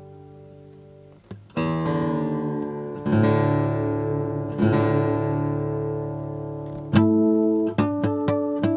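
1980s Tokai Cat's Eyes TCE-30 acoustic guitar, solid spruce top with sapele back and sides, played: a chord fades out, then three strummed chords about a second and a half apart, each left to ring. Near the end the playing turns to single picked notes in quick succession.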